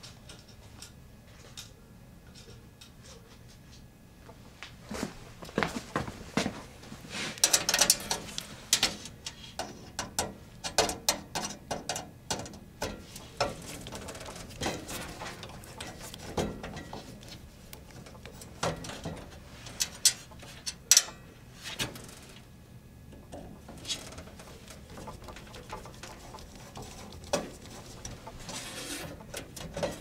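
Screwdriver driving a mounting screw into a hard drive through the steel drive cage of a computer case: irregular clicks and metal scraping, starting about five seconds in.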